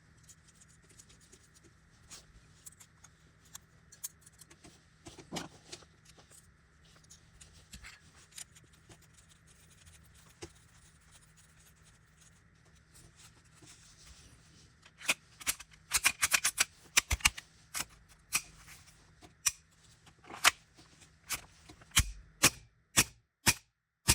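Small clicks and handling noises of VFC SIG Sauer M17 airsoft pistol parts being worked by hand. About two-thirds of the way through they turn into a run of sharper, louder clicks.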